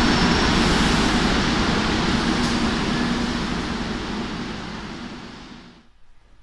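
Madrid Metro Serie 2000A train running alongside the platform and slowing: a steady rumble of wheels and motors with a low hum that grows gradually quieter, then stops abruptly near the end.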